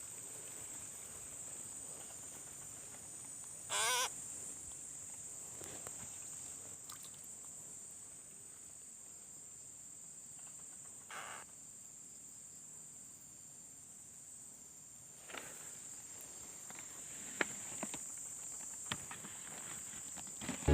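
Steady high-pitched insect drone, with a short, louder wavering animal call about four seconds in, a weaker brief call near the middle, and a few faint clicks near the end.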